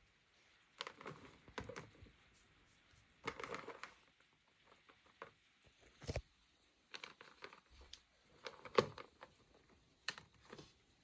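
Faint handling noises: scattered clicks, taps and short rustles at irregular intervals as a MagSafe charger and its cable are handled and connected for a power test.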